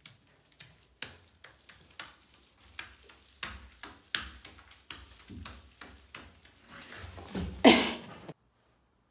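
A puppy's claws scrabbling and tapping on a bathtub as it climbs over the edge: a run of irregular clicks and knocks, with a louder bump and rustle near the end before the sound cuts off suddenly.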